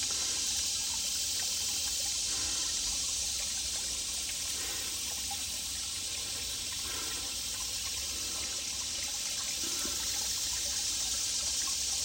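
Shallow woodland creek trickling over rocks: a steady running-water hiss.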